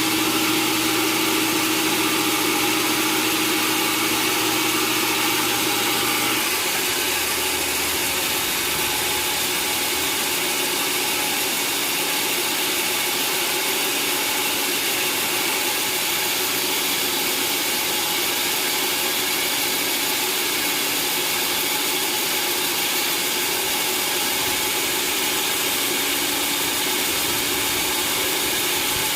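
Sawmill machinery running steadily: an engine-like hum under a broad hiss, with the hum changing about six seconds in.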